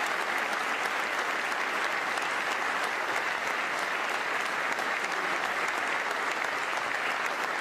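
Large audience applauding, a dense, even clapping that holds steady throughout.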